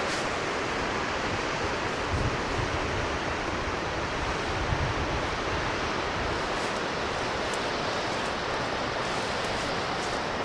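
Steady rushing noise of mountain streams and waterfalls cascading down the slopes, with brief low rumbles about two seconds and about five seconds in.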